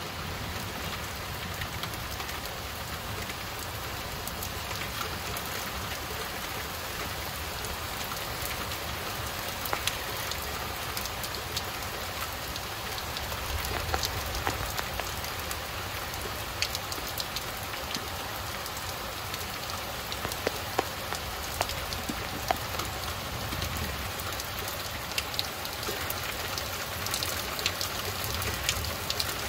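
Steady rain falling, with scattered sharp ticks of drops landing close by.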